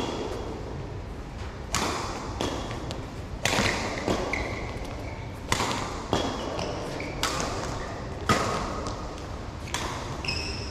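Badminton rackets striking the shuttlecock in a fast doubles rally: about eight sharp hits, roughly one every second, each followed by a short echo in the hall.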